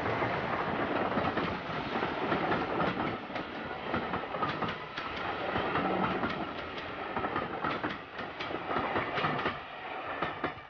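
Railway passenger coaches rolling past close by, their wheels clattering over rail joints in a quick, irregular clickety-clack over a steady rumble.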